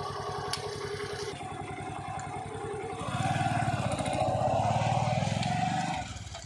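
Heavy diesel engine running, working harder and louder from about three seconds in, with a steady higher tone over it, then easing off near the end.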